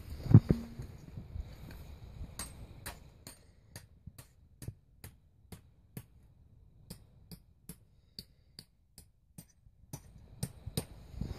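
A hammer tapping a steel tent peg into the ground: one heavier knock at the start, then a long run of light, sharp taps, about two or three a second.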